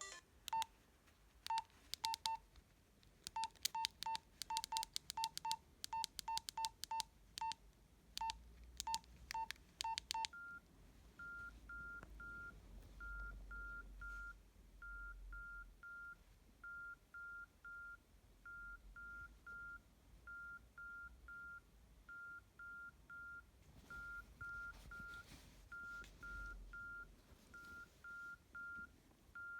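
Nokia 112 mobile phone: keys pressed at an irregular pace, each press a click with a short beep, for about ten seconds. Then the phone sounds a steady repeating pattern of short, higher beeps in twos and threes.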